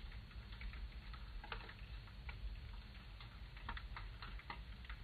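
Faint underwater ambience: scattered, irregular clicks and crackles over a low steady rumble.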